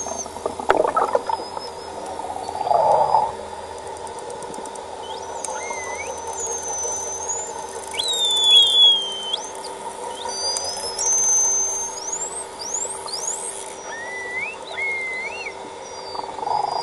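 False killer whales whistling underwater: a string of short whistles that glide up and down in pitch, with a short burst of clicks about seven seconds in, over a steady low hum.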